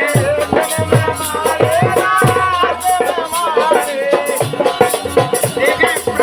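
Rai folk music: a melody with sliding pitch, played over drum strokes and a steady, fast jingling rattle.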